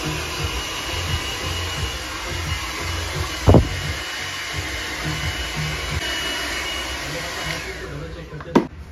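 Handheld hair dryer blowing with a steady rushing hiss and a thin high whine. Near the end it is switched off and the whine falls in pitch as it winds down. Two sharp knocks cut through, a loud one about a third of the way in and another near the end.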